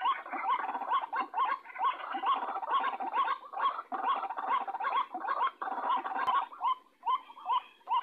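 White-breasted waterhen lure call: rapid, repeated rising 'kru-ak' notes, about two or three a second, over a busy chattering backdrop. The calls falter briefly about seven seconds in.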